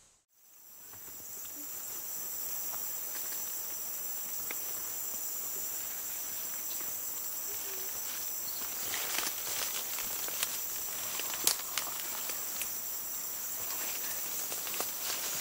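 Night forest ambience: a steady high-pitched insect chorus, fading in at the start. From about nine seconds in, rustling of leaves and cloth with small clicks as the tarsier is set down among the branches, with one sharper click about two seconds later.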